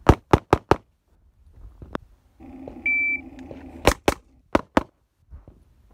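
Handgun fired in two rapid strings of four shots, one at the start and one about four seconds in, with a single fainter crack between them. A short high steady tone sounds between the strings.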